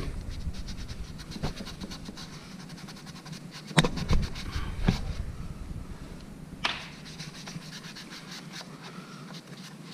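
A cloth rag rubbing wood stain onto a wooden door jamb, making a fast, scratchy scrubbing with a few sharp taps against the wood.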